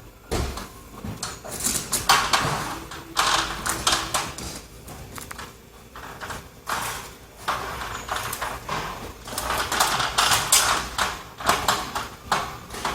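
Irregular knocks, clunks and rustling from hands-on work with equipment, in short bursts with pauses.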